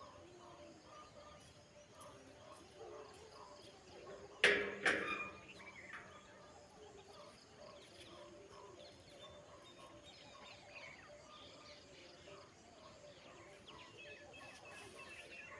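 A sharp metal clank with a short ring about four and a half seconds in, quickly followed by a second smaller knock, from the steel-framed mesh grill panel being knocked against the wall as it is positioned. Between them, low outdoor background with faint voices.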